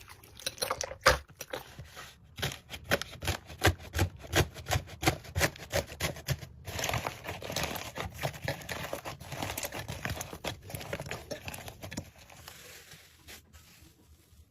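Slime being squeezed and pressed by hand, making a quick run of crackles and clicks that thins out near the end.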